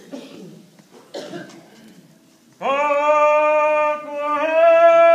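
A couple of short coughs, then a loud voice begins a long, drawn-out chanted ceremonial call held on nearly one pitch. The call comes in two long phrases, the second pitched slightly higher.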